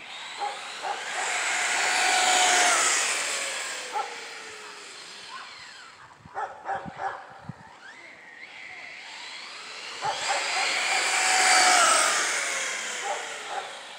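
Arrma Typhon 6S RC truggy, its brushless motor geared down on a 12-tooth pinion, making two high-speed passes at full throttle: the whine of motor, gears and tyres swells as it comes and drops in pitch as it goes, loudest about two seconds in and again near the end. A few short sharp sounds come between the passes.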